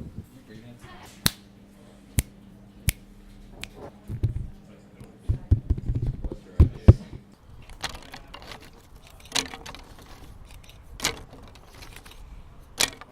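Single sharp clicks, then a busy run of dull knocks and thumps, then a few more clicks, with a faint steady hum underneath in the first half: objects being handled.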